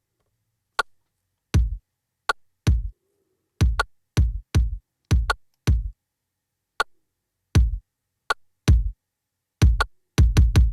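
Programmed electronic kick-drum loop playing back: deep kicks, each with a sharp click at the front and a low tail, in an uneven syncopated pattern, with a few lighter, thinner hits between.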